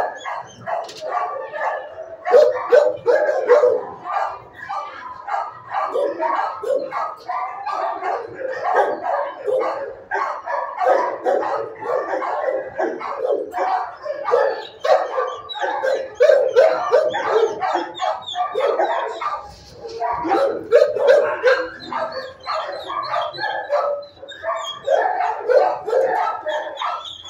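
Many shelter dogs barking at once, a continuous din of overlapping barks and yips that never lets up.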